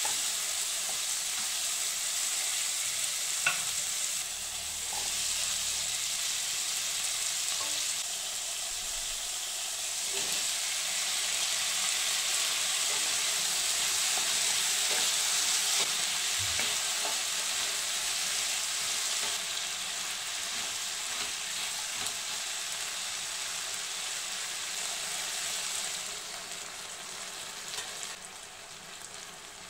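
Shallots, tomatoes, dried red chillies and chopped vegetables sizzling in oil in a frying pan as they are stirred, with a few sharp clicks of the stirring utensil against the pan. The sizzle dies down near the end.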